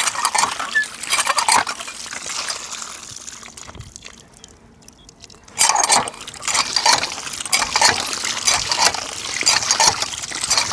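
Water from a hand pump gushing and splashing over hands and long kakdi cucumbers as they are rinsed. It dies down for a couple of seconds midway, then comes back strongly.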